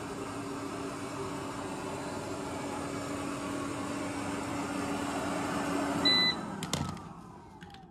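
eufy robot vacuum running on carpet with a steady whirring hum. About six seconds in it gives a short beep, then its motor winds down with a falling whine and stops.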